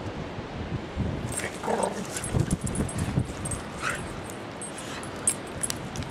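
A dog playing with a stick, giving a few short vocal sounds, two about a second and a half in and one around four seconds in, amid crackling clicks of the stick and twigs and the rustle of its steps on leaves and mud.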